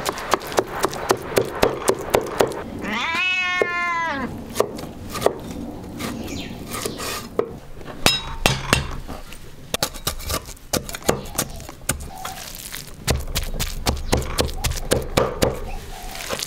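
Knife chopping on a cutting board in runs of sharp, even strokes, about three a second. A cat meows once, for about a second, around three seconds in.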